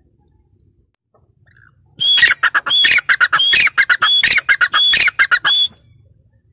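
Female grey francolin (teetar) calling loudly. Starting about two seconds in, it repeats a short ringing phrase about six times in under four seconds, each a high note followed by a quick run of lower notes.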